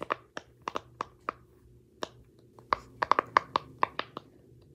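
Purple round silicone Pop-It fidget toy having its bubbles pressed in by fingers: a string of about twenty short, sharp pops at an irregular pace, with a short pause before the middle and a quick run of pops about three seconds in.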